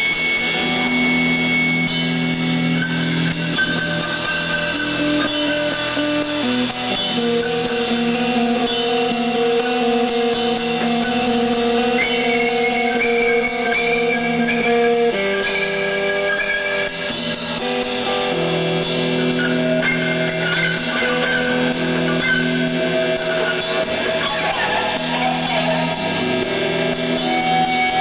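Live emo band playing a song: electric guitar holding long notes that change every few seconds, over a drum kit with steady cymbal strokes.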